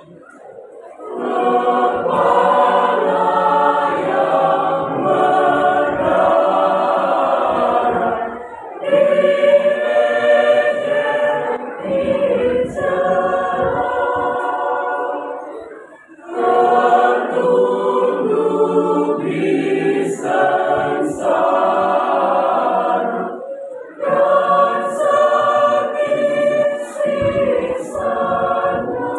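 Mixed church choir of women and men singing together in parts. The singing starts about a second in and goes in long phrases, with short breaks for breath about every eight seconds.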